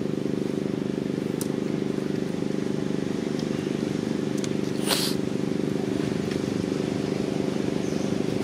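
Steady low mechanical hum made of several held tones that do not change, with one short sharp crackle about five seconds in.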